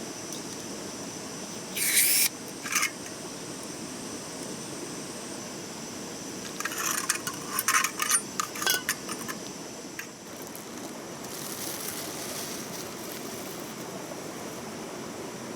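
Stream water running steadily, with short clinks and scrapes of camp gear being handled about two seconds in and again in a cluster about halfway through.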